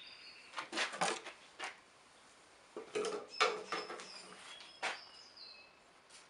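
Metallic clicks and clunks as a lathe faceplate, with a connecting rod clamped to it, is handled and turned by hand. They come in three small clusters: about half a second to a second in, around three seconds in, and once near five seconds. Birds chirp faintly in the background.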